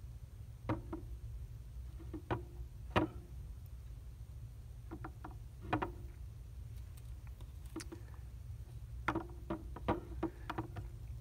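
Scattered light clicks and taps as a metal needle holder and fingers work suture on a plastic dental model, with a quick run of several clicks near the end, over a steady low hum.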